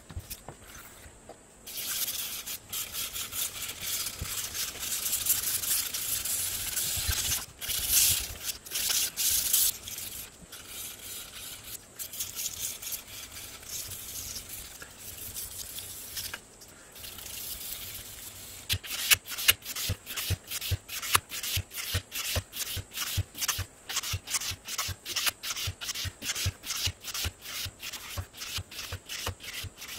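Hand-sanding the flat of a 440C stainless steel knife blade with abrasive paper on a block, rubbed back and forth in hissing strokes. About two-thirds of the way through the strokes turn short, quick and evenly paced.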